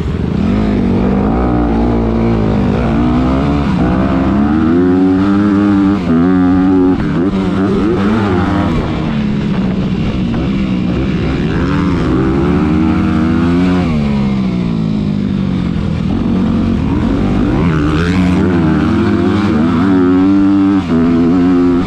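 Honda CRF250R four-stroke single-cylinder dirt bike engine, heard close up from the riding bike. It revs up and falls off again and again as the rider accelerates, shifts and rolls off the throttle around the track.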